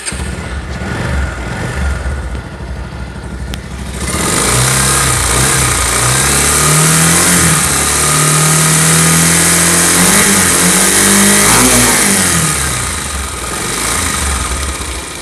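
Bajaj Pulsar motorcycle's single-cylinder engine running, idling at first, then held at raised revs from about four seconds in and easing back down near the end. Throughout there is a 'jhirjhiri' rattling from the top end, the sign of a loose timing chain.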